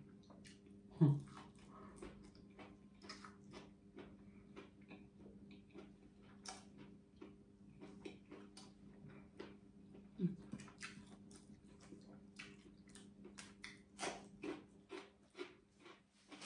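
Close-miked mouth sounds of someone chewing food: a steady run of small, crisp clicks and smacks, over a faint steady hum.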